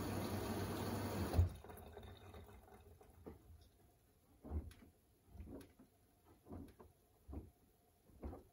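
Beko washer-dryer taking in water with a steady rush and hum, which cuts off with a clunk about a second and a half in. After that the drum tumbles the wet, sudsy laundry, which sloshes about once a second.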